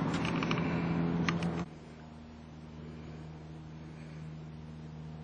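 A steady low machine hum with a few faint steady tones. It is louder at first, with a few light clicks, then drops sharply in level about one and a half seconds in and carries on quietly.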